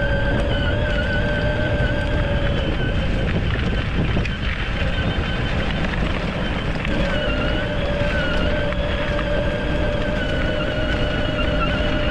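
Electric drive motors and gearboxes of a 24V kids' ride-on car whining steadily as it drives, over a low rumbling noise. The lowest note of the whine drops out for a few seconds around the middle.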